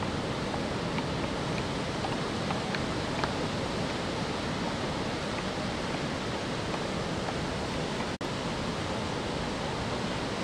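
Ocean surf breaking and washing ashore, a steady even rush of noise, with one brief dropout about eight seconds in.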